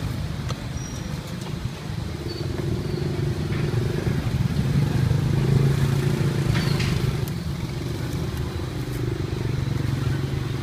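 Street traffic with a motorbike engine running close by, its hum swelling through the middle and easing off again, with a few faint clicks.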